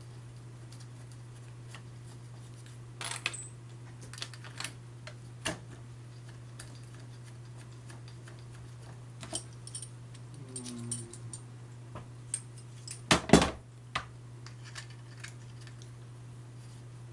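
Scattered clicks and light metallic knocks of small metal parts being handled as a home-made motor-and-spindle assembly is fitted onto a CNC plotter's carriage, with one louder clunk about thirteen seconds in. A steady low hum runs underneath.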